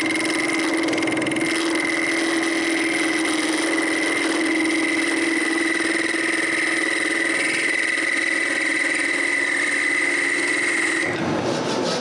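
Wood lathe running with a steady hum and higher whine as a turning tool cuts into a spinning oak blank, shaping a small pivot. About eleven seconds in, the lathe sound stops abruptly and sawing strokes through the wood begin.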